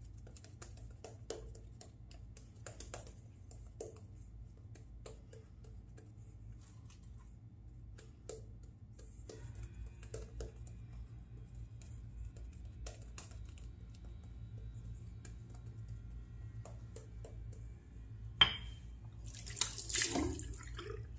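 Faint scattered ticks and rubbing as an alum block is worked over freshly shaved skin. Near the end a sharp click, then a tap runs briefly and water splashes over a hand in the sink.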